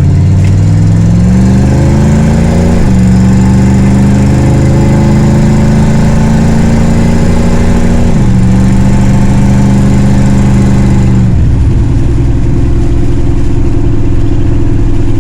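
1978 Ford Mustang's engine pulling the car along, running on a freshly repaired carburetor. The revs climb steadily, then drop sharply about three seconds in as it shifts up. They hold steady, dip again about eight seconds in, and settle lower a little past eleven seconds.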